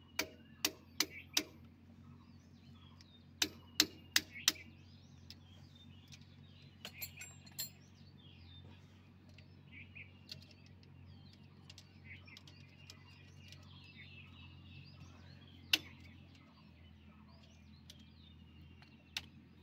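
Hammer striking a steel drift against the end of a tractor's power-steering cylinder, to push the end piece in and free its lock: two sets of four quick, sharp, ringing taps near the start, a few more about seven seconds in, and a single one near the end. Birds chirp faintly throughout.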